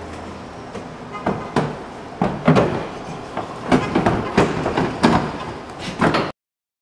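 Polaris RZR seats being set and latched into place: a string of irregular knocks, clunks and rattles, busier in the second half, that stops abruptly near the end.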